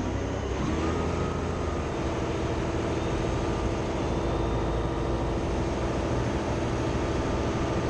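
Wirtgen asphalt milling machine running, heard from the operator's platform: a steady mechanical drone, with a tone that rises in pitch over the first second and then holds.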